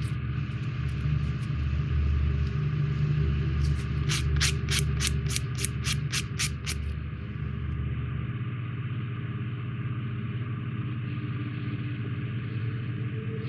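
A sanding stick rubbed back and forth on a small plastic model-kit part, a run of about a dozen quick strokes, roughly three a second, starting about four seconds in and stopping near seven seconds. Under it runs a steady low hum, whose deepest part drops away about eight seconds in.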